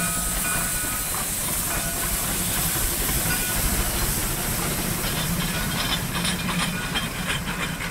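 1923 Lima three-truck Shay geared steam locomotive rolling slowly past with a steady hiss of steam over a low rumble. From about five seconds in, a quick run of metallic clicking and clanking from its running gear and wheels on the rails joins the hiss.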